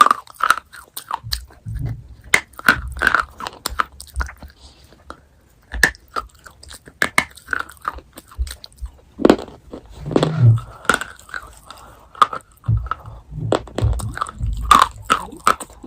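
Chocolate being bitten and chewed close to the microphone: irregular crisp clicks and crunches with wet mouth sounds between them.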